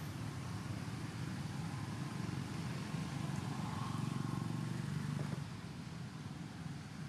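Steady low rumble of a motor vehicle, swelling about four to five seconds in, then easing off.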